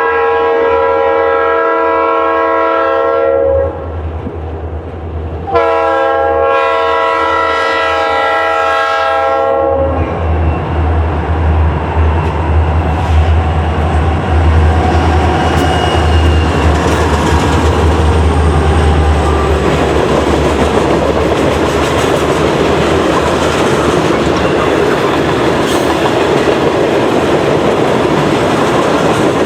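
Diesel freight train sounding two long blasts on its air horn, then passing close by: the heavy rumble of the locomotives for several seconds, followed by the steady rolling and clatter of the freight cars.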